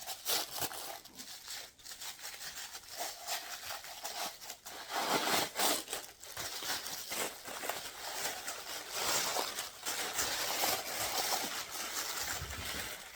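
Gift wrapping being torn open and crumpled by hand: a continuous run of crinkling and rustling with sharp rips, stopping suddenly at the end.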